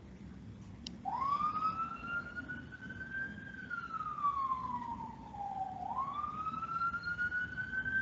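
An emergency vehicle's siren wailing, starting about a second in. It slowly rises in pitch, sinks back down, and rises again.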